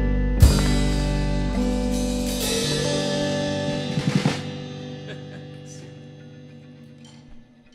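A rock band's closing chord ringing out. A cymbal crash comes about half a second in and a quick run of drum hits around four seconds, then the chord slowly fades away.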